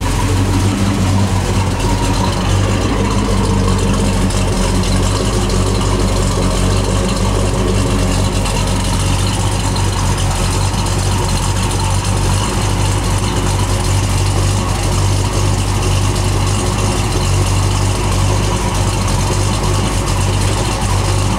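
1981 Chevrolet Monte Carlo's 396 big-block V8 idling steadily, with a deep, even low rumble.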